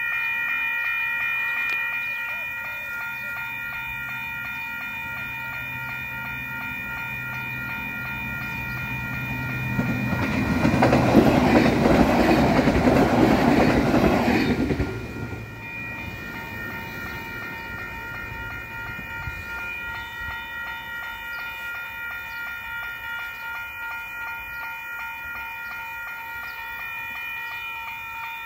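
Level-crossing alarm bells ringing in a steady rhythm while an Auckland AM class electric multiple-unit train rolls over the crossing. The train noise swells to its loudest for about five seconds around the middle, then drops away, and the bells keep ringing.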